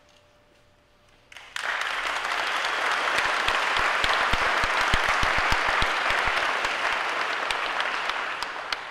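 Crowd applauding, breaking out suddenly about a second and a half in and dying down near the end.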